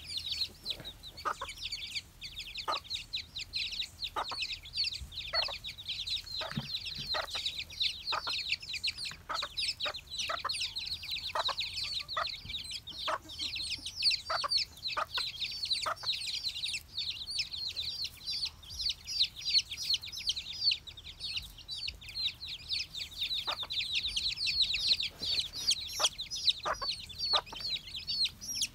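A brood of chicks peeping constantly as they scramble over a worm, many high chirps overlapping. Short, lower clucks from the mother hen break in every second or so.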